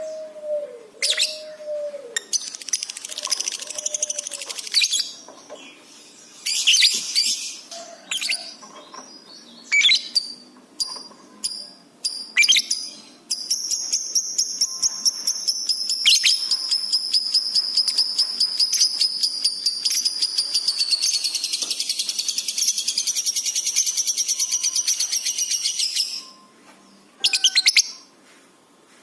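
Lovebird singing: scattered sharp, high chirps, then about thirteen seconds in a long, very rapid chattering trill that runs for around thirteen seconds and stops abruptly, followed by a few more chirps.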